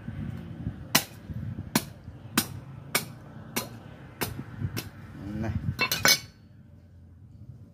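A knife hacking and cracking through a plucked duck's rib cage: a run of sharp cracks, roughly one every half second or so, ending with three in quick succession about six seconds in.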